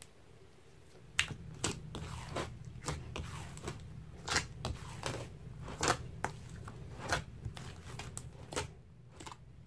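A large batch of thick grey slime with sand mixed in being kneaded, folded and pulled by hand in a bowl. It gives irregular wet pops and crackles, about two a second.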